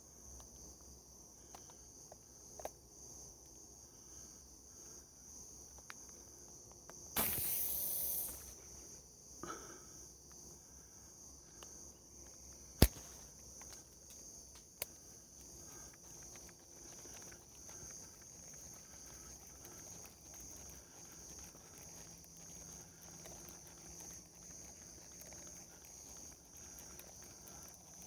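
Steady high-pitched insect chorus droning throughout. About seven seconds in comes a noisy rustle lasting about a second, and near the middle a single sharp, loud click, with a smaller click about two seconds later.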